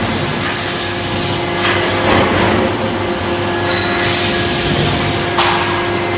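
Forge shop machinery running around a CNC hydraulic die forging hammer: a loud, steady machine hum and hiss with several held tones, and two knocks, about two seconds in and again near the end.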